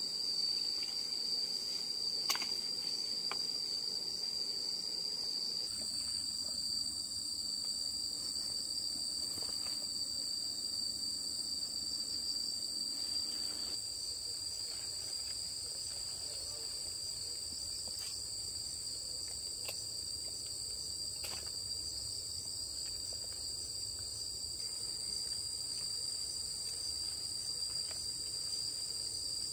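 Steady chorus of insects, a continuous high chirring held on two high pitches without a break. A few faint, light ticks sound over it, one about two seconds in and a couple more past the middle.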